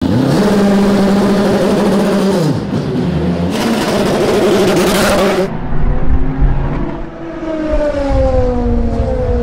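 Le Mans prototype race cars' V8 engines in a run of cut-together shots. First an engine is held at steady revs, dropping away about two and a half seconds in. Then comes a loud, harsh rush of noise that stops abruptly, and near the end a car passes at speed with its engine note falling in pitch.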